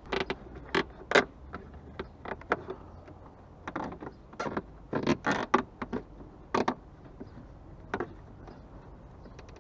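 Plastic zip ties being threaded through holes in a plastic car bumper and wheel-arch liner and pulled through, making short, irregular rasps, scrapes and clicks of plastic on plastic.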